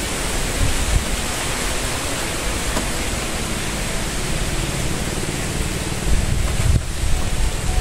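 Strong wind buffeting the microphone: a steady rushing hiss with low rumbling gusts, a heavier gust about six seconds in.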